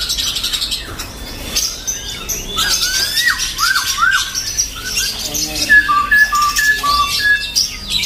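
Many caged songbirds chirping and whistling over one another. A run of rising-and-falling whistled notes comes through in the first half, then a clear two-pitched whistle, high then low, repeats several times in the second half.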